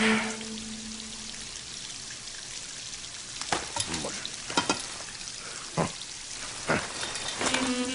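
Steady hiss of water running and spilling over from an overflowing bathroom sink. Through the middle come about five sharp knocks and clatters as a metal shower-curtain rod is wrenched down from its fittings. A held music note sounds at the very start and comes back near the end.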